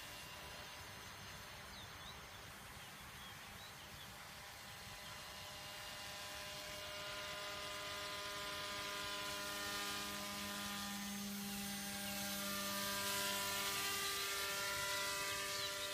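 Radio-controlled paramotor's motor and propeller whining in flight, several steady tones together. It grows louder over the second half as it comes nearer, with some of the pitches sliding up and down.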